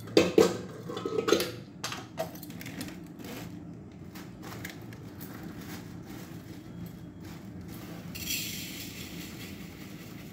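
Kitchen utensils and dishes knocking and clinking on a counter for the first couple of seconds, over a steady low hum. A plastic bag rustles near the end.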